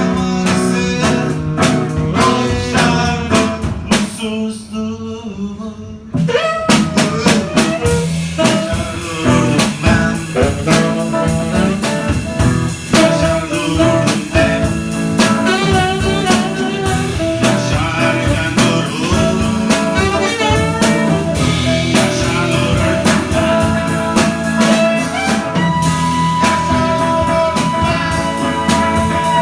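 A saxophone and guitar improvising together in a bluesy jazz style, the saxophone playing wavering melodic lines over the guitar. The playing thins out briefly about four seconds in, then picks back up.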